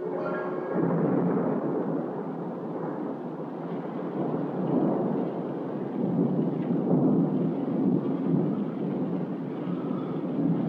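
A dense, low rumbling noise that rises and falls without a break. Plucked-string music fades out in the first second.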